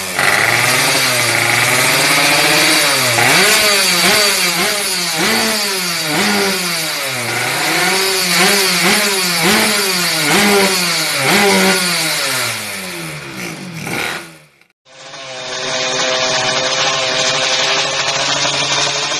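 Two-stroke underbone motorcycle engine, a Yamaha F1ZR, being revved in repeated blips, its pitch rising and falling about once a second. After a short break it runs at a steady speed.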